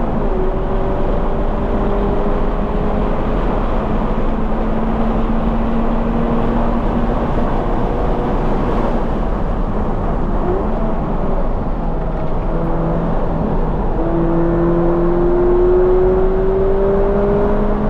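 2020 Toyota 86's 2.0-litre flat-four engine, breathing through a Corsa cat-back exhaust, pulling under hard acceleration, its pitch climbing slowly over the first few seconds. It falls off for a few seconds past the middle and climbs again near the end, over constant road and wind noise.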